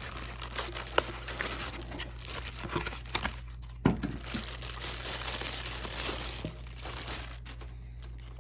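Plastic bag wrapper and foam packaging crinkling and rustling as a boxed battery charger is unpacked, with a couple of sharp clicks about a second and four seconds in, over a steady low hum.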